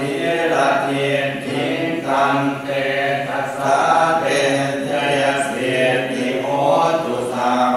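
Buddhist chanting in Pali, voices reciting together on a steady low monotone in phrases of a second or two.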